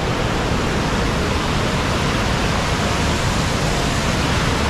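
White-water rapids of a fast mountain river rushing over boulders, close by: a loud, steady rush of water with no pauses.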